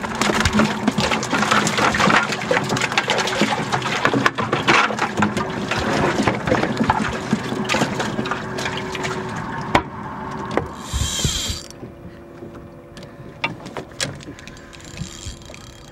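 Water splashing and pouring, dense with small sharp knocks, for about the first ten seconds, then dropping to a quieter, steadier sound.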